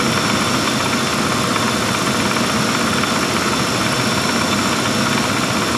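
1995 Lincoln Town Car's 4.6-litre V8 idling steadily with the air-conditioning compressor engaged and running, with a faint steady high tone over the engine noise.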